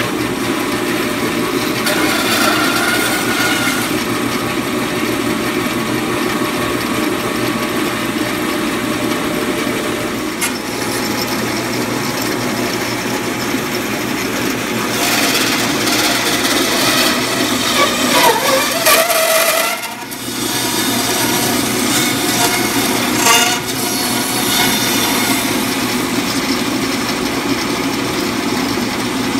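Guide Gear meat band saw running steadily, its motor and moving blade cutting through deer ham and loin. The level dips briefly about two-thirds of the way in.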